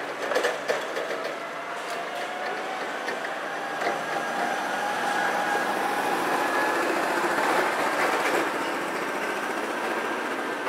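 Forklift running as it carries a heavy steel column, with a steady whine whose pitch rises slowly over the first few seconds, over a continuous rattling mechanical noise with occasional clicks.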